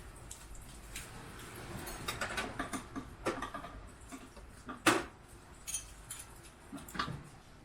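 Hand tools working on a car fitting: scattered clicks, light clinks and scrapes of a spanner on metal, with a sharper knock about five seconds in and another near the end.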